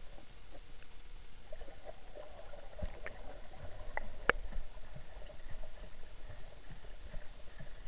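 Muffled underwater sound of moving water picked up by a submerged camera: a low rumble with scattered clicks and pops, the sharpest about four seconds in.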